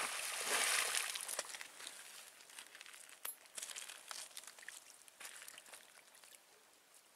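Rustling and crinkling of a magnet-fishing rope being handled after a throw, louder in the first second and a half, then fading to scattered faint clicks and rustles.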